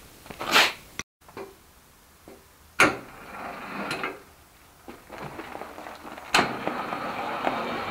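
Clunks and knocks of hands-on work on a car's frame and running gear, two of them loud, about three seconds in and about six and a half seconds in. A steady mechanical whirring noise sets in with the second loud knock and carries on.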